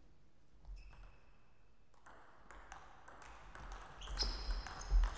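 Table tennis rally: the celluloid-type plastic ball clicks sharply off rackets and the table, starting with the serve about a second in. The hits come faster and louder toward the end, over the scuffing of the players' footwork on the floor.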